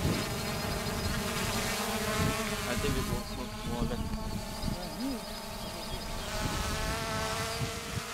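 Quadcopter drone hovering overhead, its propellers and motors giving a steady, high buzzing whine.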